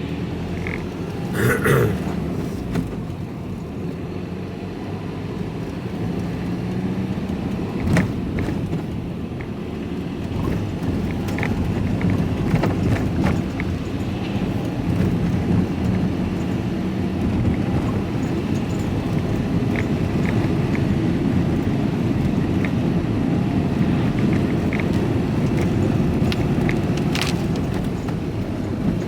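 Steady engine and road rumble of a vehicle being driven, heard from inside the cab, with a few short knocks now and then.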